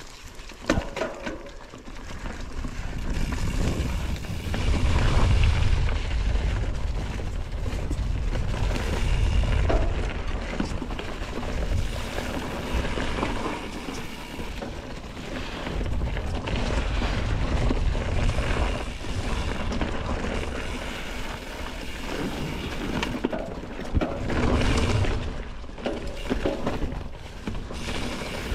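Mountain bike ridden over a dirt and leaf-covered forest trail, heard from a GoPro on the bike or rider: tyres rolling on the dirt, the bike's chain and parts clicking and rattling over bumps, and a low rumble of wind on the microphone, building up in the first few seconds.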